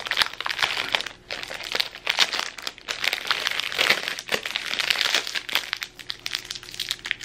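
Plastic ice-cream-bar wrapper crinkling as it is torn open and handled, the bar pulled out and the wrapper wound around the stick, with brief pauses about a second in and near the middle.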